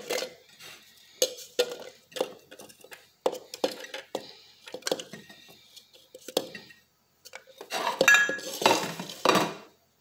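Cutlery clinking and scraping on a ceramic plate as chopped onion, garlic and ginger are pushed off it into a plastic blender beaker: a run of irregular light clinks with a faint ring, and a louder clatter near the end.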